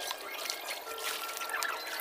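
Swimming-pool water lapping and splashing close to the microphone at the pool's edge, an uneven, trickling wash with faint music behind it.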